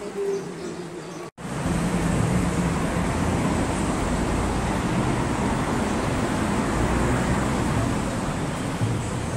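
Steady, loud street noise of traffic on a busy avenue, a rushing hiss with a low rumble. It cuts out for an instant about a second in and comes back louder.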